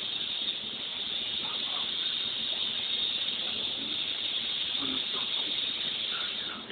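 Steady high hiss, with faint voices in the background.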